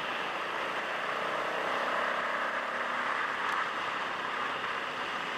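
Motorcycle under way at a steady cruising speed: its engine runs with a steady note beneath a constant rush of wind and road noise, swelling slightly in the middle.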